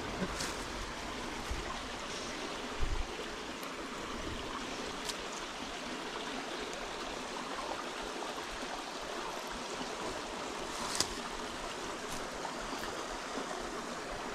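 Small creek running steadily over stone into a man-made pool: an even rush and trickle of water. A few light clicks and one low knock about three seconds in.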